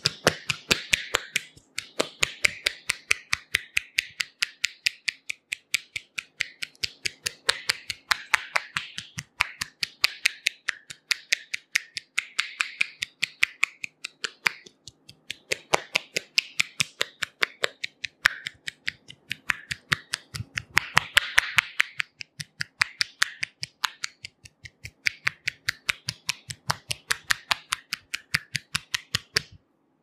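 Rapid crisp clicking taps of hands striking a head and shoulders in Indian head massage tapping, several clicks a second in steady runs with short breaks, stopping just before the end.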